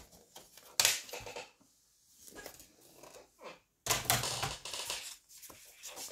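Craft-table handling sounds: a sharp knock about a second in as a plastic paper trimmer is lifted and set aside, then clattering and rustling as sheets of paper are picked up and handled.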